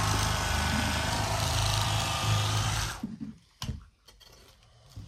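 Cordless battery-powered electric fillet knife running, its reciprocating blades cutting into a white perch behind the head, with a steady motor hum; it is switched off about three seconds in.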